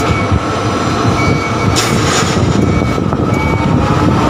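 Tower crane running as heard inside the operator's cab as it slews: a steady loud rumble with a thin electric-motor whine, and a second whine rising in pitch near the end.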